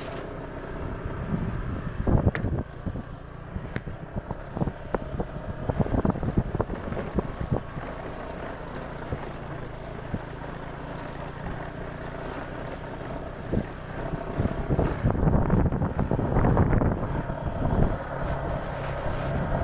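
Honda PCX 150 scooter's single-cylinder engine running steadily at low speed over a rough, potholed stony track, with repeated knocks and rattles as the scooter jolts over bumps and wind on the microphone.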